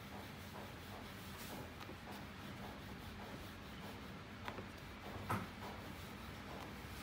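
A small wooden rolling pin rolling back and forth over dough wrappers on a floured wooden board, with soft rubbing. Two light knocks come about four and a half and five seconds in, the second louder.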